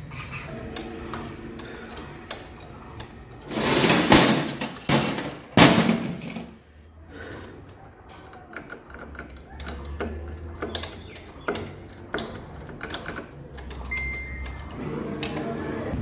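Hand work on a Hero Splendor Plus engine as its clutch-side cover is taken off: metal clunks, clicks and scraping of the cover and tools, with a few loud scraping bursts about four to six seconds in.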